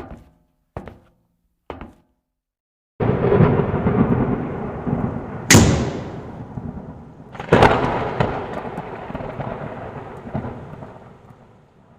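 Three evenly spaced thuds, then a thunderclap: a sudden loud rumble about three seconds in, with two sharp cracks, that slowly fades away.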